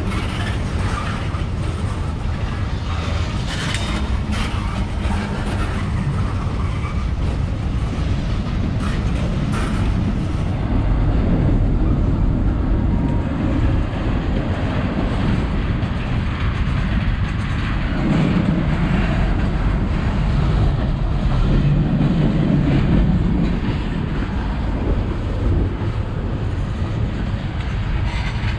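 Freight train of tank cars rolling past at close range: a steady rumble with the wheels clattering and clicking over the rails. The clicks are sharpest in the first several seconds, and the low rumble grows heavier later on.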